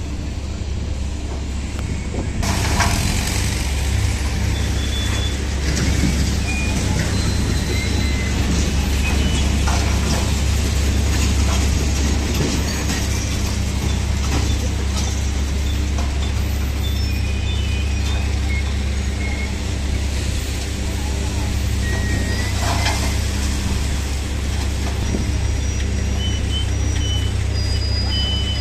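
Sugar mill's hydraulic cane tippler running with a steady, loud low hum and hiss as it tilts a loaded tractor trailer to tip out sugarcane. Short high chirps come and go over the machinery.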